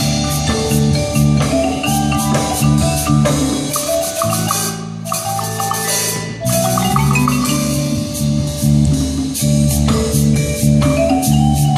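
A percussion ensemble's mallet keyboard instruments play a quick run of notes over repeating low bass notes, with sharp percussion strikes mixed in.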